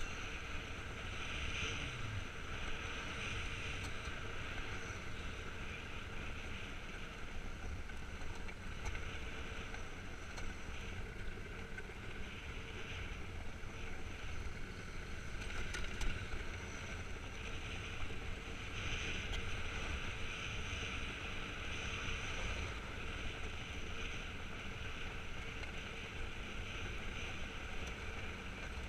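Iceboard runners gliding over clear lake ice, a steady scraping hiss, with wind buffeting the microphone.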